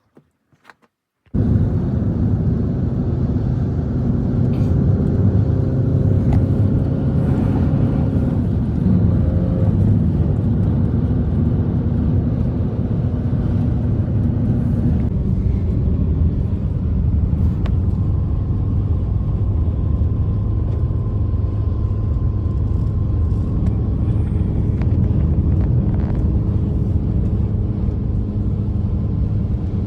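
Blizzard wind blowing hard, a steady low rumble with faint whistling tones, starting abruptly about a second in.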